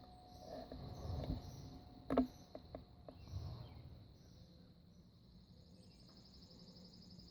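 Insects trilling steadily in a high, even drone, with a second, faster-pulsing trill joining about five seconds in. Soft wind gusts brush the microphone a couple of times, and there is one sharp click about two seconds in.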